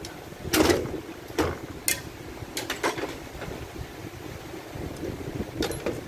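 Steel pry bars levering the dual clutch pack up out of a Ford Focus DPS6 dual-clutch transmission. There are a series of sharp metallic clunks and clicks, the loudest about half a second in and a few more over the next few seconds.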